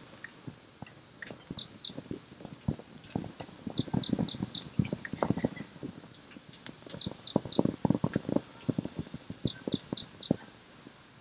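Irregular knocks and taps, thickest around four and eight seconds in, over a steady high insect drone. Short high chirps come in quick runs of two to four.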